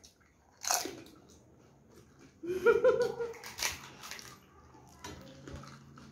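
Crisp, hollow fried panipuri (fuchka) shells cracking and being bitten into, with crunching and chewing. There is one sharp crack about two-thirds of a second in. A short vocal sound from one of the eaters, the loudest thing, comes about two and a half seconds in, followed by a few more crisp cracks.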